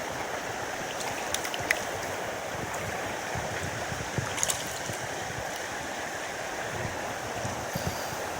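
Mountain stream flowing steadily, a constant rush of water, with a few light clicks about a second and a half in and again about four and a half seconds in.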